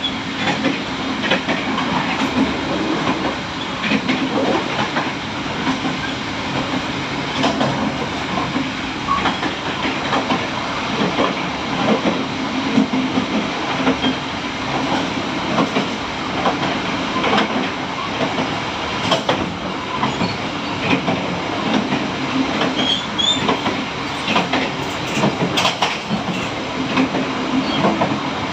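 Train running along the track: a steady rumble with frequent sharp, irregular clacks from the wheels on the rails.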